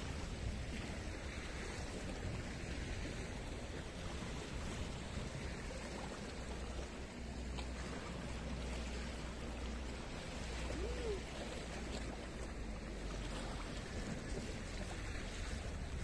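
Sea surf washing steadily onto the shore, with a low rumble of wind on the microphone.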